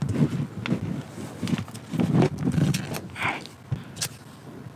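Tape being laid along the edges of a sheet of paper: irregular thuds and rustles as hands press it down and the heavy desk tape dispenser is handled, with a brief rasp of tape pulled off about three seconds in.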